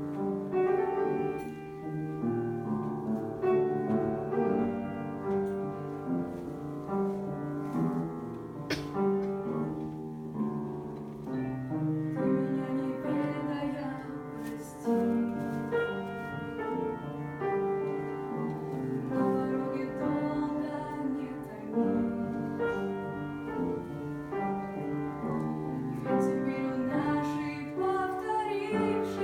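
Piano playing the accompaniment and melody of a slow pop ballad, with chords changing every second or so.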